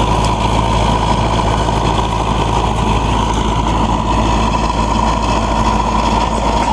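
Disc trencher and its driving engine running steadily, a heavy engine rumble under a constant high whine.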